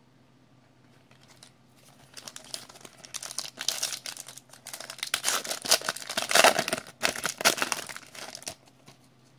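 Foil wrapper of a 2015 Panini Contenders baseball card pack being torn open and crinkled by hand, starting about two seconds in and loudest a little past the middle.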